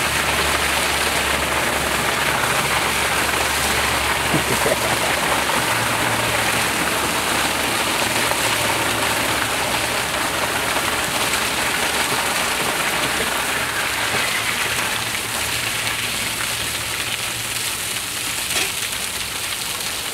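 Hot spent liquid from a distillery still's kettle gushing out of a wall discharge pipe and splashing steadily onto the pavement, easing slightly near the end.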